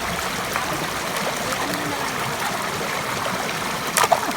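Small waterfall or stream running steadily, rushing and trickling water. A brief sharp sound cuts through near the end.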